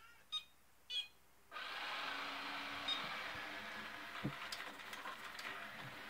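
Robot vacuum cleaner giving two short beeps, then its suction motor and brushes starting about a second and a half in and running steadily.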